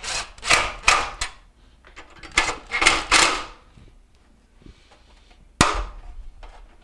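Cordless driver run in two short bursts of a few pulses each, fastening screws into the range's control console, then one sharp click about five and a half seconds in.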